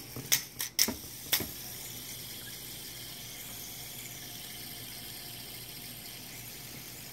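A few sharp clicks as fingers flick and handle an LED fidget spinner, then a faint steady whirr of the spinner turning on its bearing.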